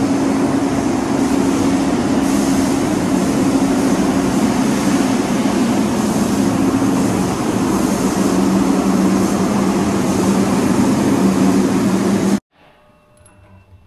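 Paint spray booth running while a truck frame is spray-painted: a steady loud drone from the booth's ventilation fans with two low hums and the hiss of the spray gun's air. It cuts off suddenly near the end, leaving a much quieter stretch with faint ticks.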